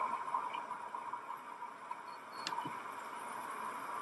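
Faint steady hiss with a single sharp click about two and a half seconds in.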